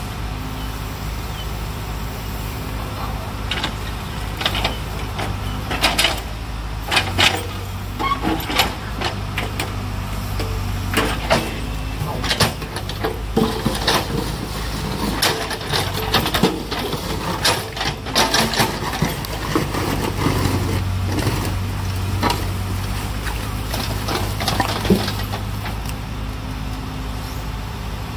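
Backhoe loader's diesel engine running steadily, with many irregular sharp knocks and clatters through the middle as rubbish is loaded into a dump truck.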